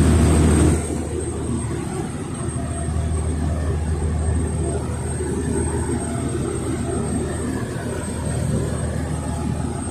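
Tugboat's diesel engine running steadily, a low drone that is a little louder in the first second.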